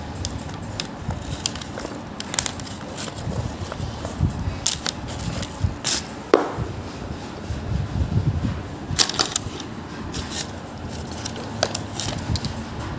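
Small metal clicks, clinks and handling knocks as a Godrej gas spring's end fitting is worked on with a nail to push its pin out, with the parts tapping on a wooden tabletop. A few sharper metal strikes stand out about five, six and nine seconds in.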